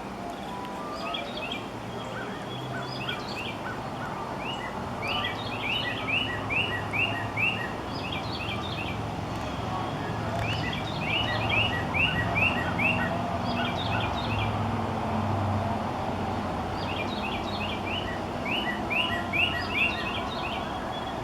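Northern cardinal singing: three phrases of five or six quick down-slurred whistled notes, with other birds chipping between them and a steady low rumble underneath.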